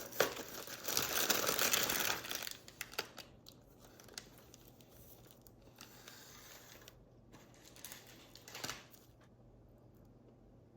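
Food packaging crinkling and tearing as it is opened, dense for the first two seconds, then scattered small crackles and a brief rustle near the end.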